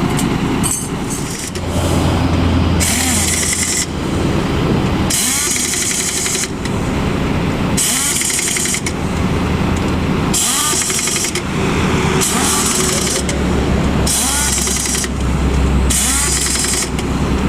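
Pneumatic impact wrench tightening the axle-shaft bolts on a UD Quester truck's rear hub, in about seven short hissing, hammering bursts a second or so apart. A truck engine idles steadily underneath.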